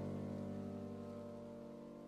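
Background music: a single held piano chord slowly dying away.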